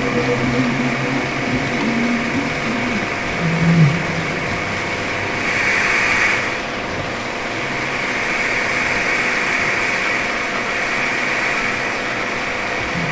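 A steady mechanical whirring noise with a constant hum, swelling briefly around the middle.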